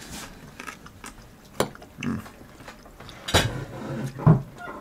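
A man chewing a bite of steak close to the microphone, with low "mmm" hums of approval and a couple of sharp clicks partway through.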